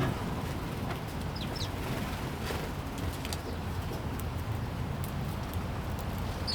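A few short, high chirps from sparrows, a pair about a second and a half in and another near the end, over a steady low rumble.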